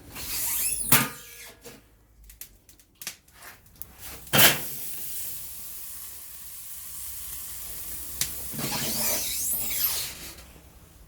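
Thick bone-in steak sizzling with a steady hiss on a charcoal grill grate at searing heat, with metal clatter at the start and a sharp clank about four seconds in. The sizzle dies down near the end.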